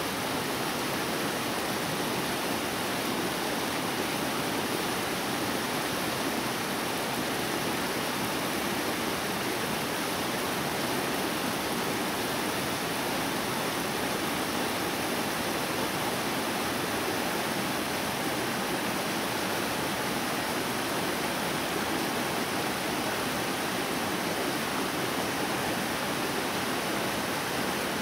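Rocky mountain stream rushing over boulders and small cascades: a steady, even rush of water.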